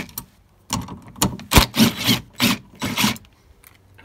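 Cordless DeWalt driver run in a quick series of short trigger bursts, backing out the bolts that hold a rear wiper motor to the liftgate.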